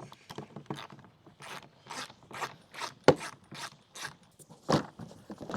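Ratchet wrench clicking in a series of short strokes, about two a second, as it loosens a fastener on an electric lawnmower's motor cover.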